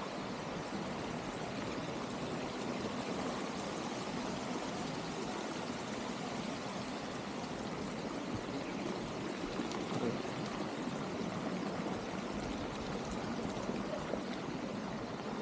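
Water pouring and splashing in a steady, even rush from the fountains and spouts of a Balinese water garden.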